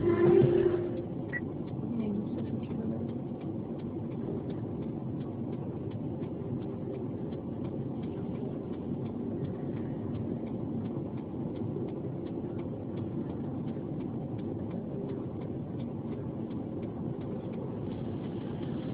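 Music cuts off about a second in. After that there is the steady hum of a stationary car's cabin, an engine idling, with a faint regular ticking all through, like an indicator relay.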